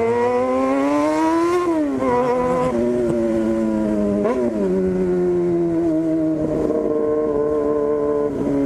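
Yamaha FZ6's 600 cc inline-four running through a straight-piped 4-into-1 exhaust. It revs up for nearly two seconds, then drops sharply as the throttle closes or a gear changes. It gives a short rev blip a little past four seconds, then runs at a steady pitch.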